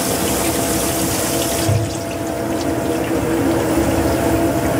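Low-pressure water spray hissing steadily as it rinses excess water-washable fluorescent penetrant off a pistol barrel during liquid penetrant inspection. The spray's hiss softens about two seconds in.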